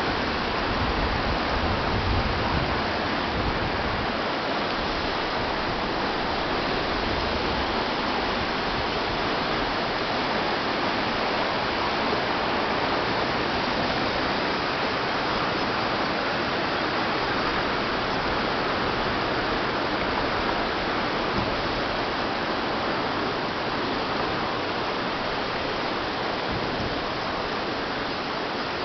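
Steady rushing of the Karasu River running high after Typhoon Hagibis, an even wash of water noise, with some low wind rumble on the microphone in the first few seconds.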